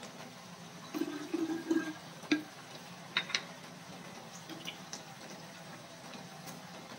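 Thick soy-based adobo sauce bubbling and sizzling around chicken feet in a cast-iron pan. A run of low blubbing bubble bursts comes about a second in, and a few sharp pops of spitting sauce follow between two and three and a half seconds in.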